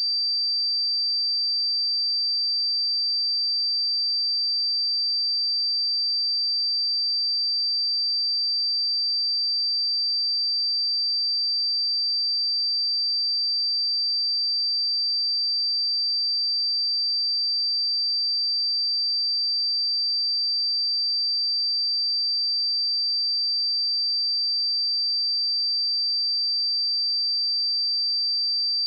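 A pure 4674 Hz sine-wave test tone, a single steady high-pitched tone that holds at one pitch and level.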